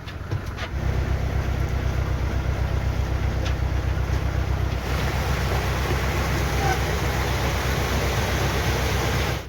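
Narrowboat engine running steadily, opening up to a higher, louder note about a second in and holding there, with a rushing hiss over it.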